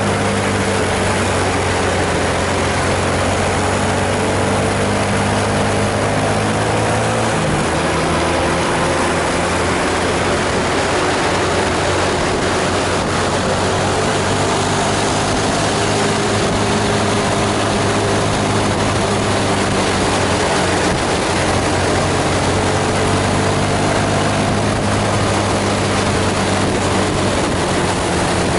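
Heavy diesel bus engines labouring up a steep climb, a steady low engine note whose pitch shifts about seven seconds in, over a constant wash of road noise.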